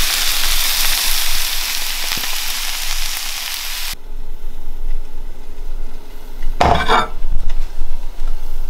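Food sizzling in a hot frying pan, a dense steady hiss that cuts off suddenly about four seconds in. After that the pan sounds are quieter, with a short burst of noise near seven seconds.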